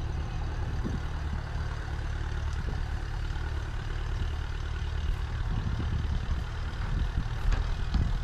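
An engine running steadily with a low hum, with a few faint knocks near the end.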